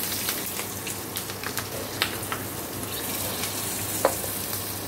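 Nigella seeds and green chillies sizzling in hot oil in a kadai, a steady hiss with scattered small pops and a sharper click about four seconds in.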